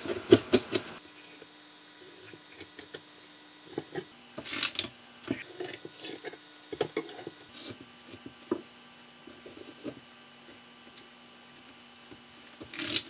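Scattered light knocks, clicks and short rubbing sounds of things being handled, loudest about a second in, with a faint steady hum underneath.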